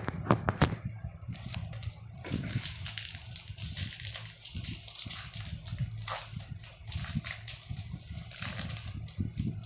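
Crinkly foil wrapper of a trading-card booster pack being torn open and rustled, with small clicks of handling in the first second and a steady crackling rustle from about two seconds in.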